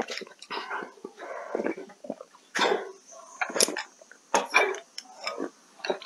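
Someone slurping soup from a bowl in a series of short, irregular sips.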